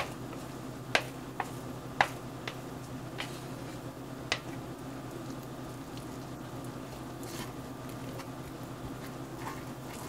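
Wooden chopsticks tapping and scraping against a plastic mixing bowl as thick batter is scraped out of it: about six sharp clicks in the first four and a half seconds, then only a steady low hum.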